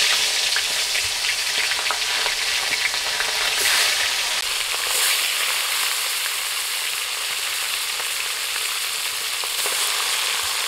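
Fish pieces sizzling steadily as they fry in hot mustard oil in a kadai.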